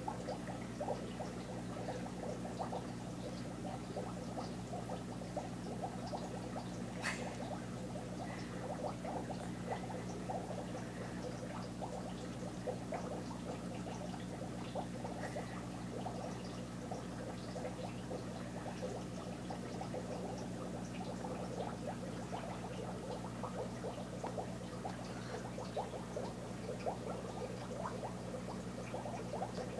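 A cat lapping wine, a continuous run of quick, small wet tongue flicks over a steady low hum, with one sharper tick about seven seconds in.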